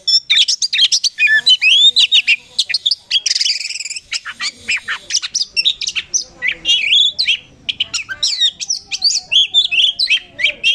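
Oriental magpie-robin (kacer poci) in full song, a fast, continuous, rolling run of varied whistles, slurs and chattering notes with hardly a pause, with a denser, scratchy stretch about three seconds in.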